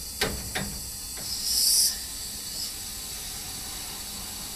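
Two sharp clicks, then about a second and a half in a short hiss of gas vented at a refrigerant gauge-set hose fitting on an outdoor air-conditioning condensing unit.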